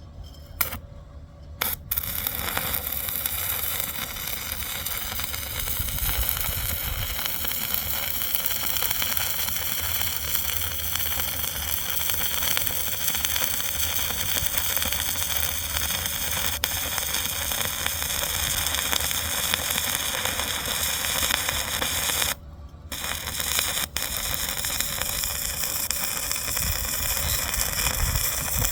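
Stick-welding arc crackling and hissing steadily as a bead is run on a welding plate. It begins after two short sharp strikes of the electrode near the start, and the arc drops out for a moment about three quarters of the way through before restriking.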